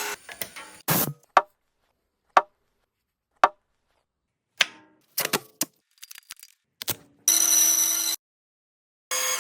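Clipped bursts of woodworking tool sounds separated by dead silence: several short, sharp ringing knocks, a few light clicks, then near the end a burst of under a second of a power tool running with a steady whine.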